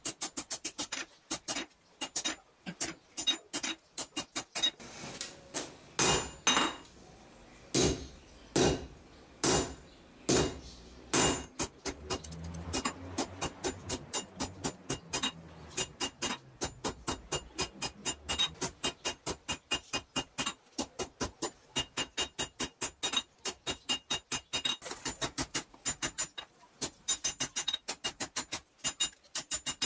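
Hand hammer forging hot 52100 bearing steel on an anvil, with quick runs of ringing blows. Near the start there is a stretch of about six heavier, louder strikes roughly a second apart.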